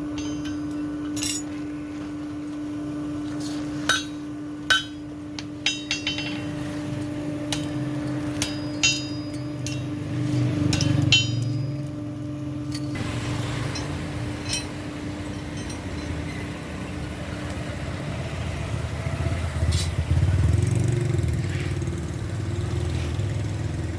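A hammer striking metal in a blacksmith's shop: a dozen or so separate ringing clinks, mostly in the first half. They sit over a steady hum that stops about eighteen seconds in, and under the low rumble of passing vehicles that swells twice, about ten and twenty seconds in.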